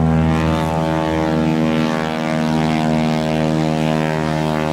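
Piston aircraft engine running steadily at a constant pitch: an even, deep drone with many overtones.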